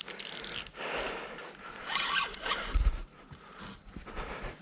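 Rustling and handling noise from an angler moving and working a fishing rod in the dark while fighting a hooked catfish that is stuck fast. Scattered clicks run through it, with a short low thump about three seconds in.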